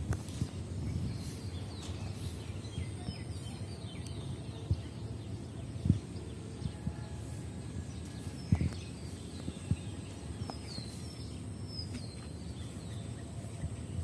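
Outdoor ambience: a steady low rumble with a few sharp knocks, and small birds giving short falling chirps, a cluster about three seconds in and more near eleven seconds, over a faint steady high whine.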